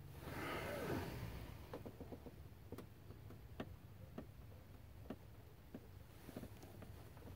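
Faint, uneven clicks from a Snap-on torque angle wrench on a cam phaser bolt as it is pulled through its final 90-degree turn, with a brief rustling swell in the first second.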